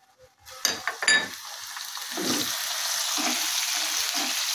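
Chopped green chillies sizzling in hot mustard oil and cumin in a wok, stirred with a spatula. Two knocks about a second in, then the sizzle builds and holds steady.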